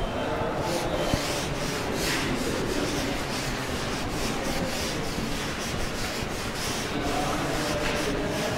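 Chalkboard duster rubbing back and forth across a blackboard, wiping chalk off in repeated scrubbing strokes.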